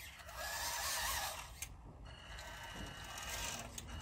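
WPL B-1 1/16-scale RC crawler truck's electric motor and gearbox whirring as it drives and turns on block paving, louder for the first second and a half and then easing off.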